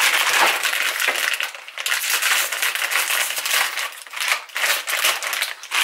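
Plastic instant-noodle packaging crinkling and rustling as it is handled, an irregular dense crackle.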